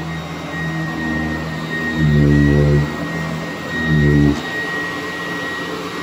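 Sanitaire S675 upright vacuum running loud, a steady high motor whine over rushing air. A low droning hum swells twice, about two seconds in and again near four seconds, each for under a second.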